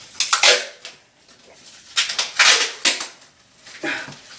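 Duct tape being pulled off the roll in three loud ripping pulls: one near the start, a longer one about two seconds in, and a short one near the end.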